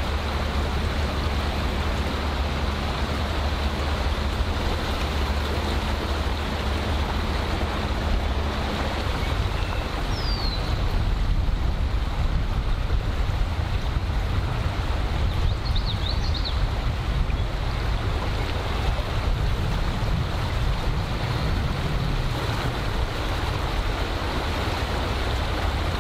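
Steady rushing of a rain-swollen creek in flood: an even wash of water noise with a low rumble underneath.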